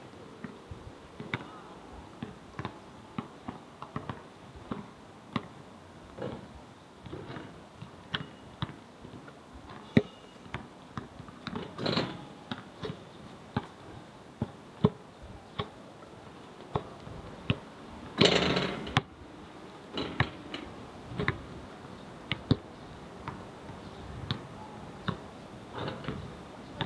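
Irregular sharp knocks and thuds on a hard surface, about one or two a second, with a brief louder rushing noise about eighteen seconds in.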